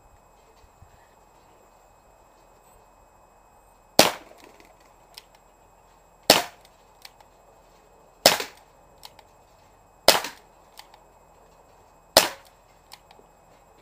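Umarex Smith & Wesson 586 CO2 air revolver firing pellets: five sharp pops about two seconds apart, starting about four seconds in, each followed by a faint click under a second later.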